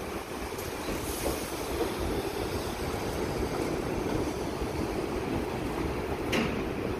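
R62A subway train pulling out and rolling away along elevated steel track, a steady rumble of wheels and running gear, with one sharp click about six seconds in.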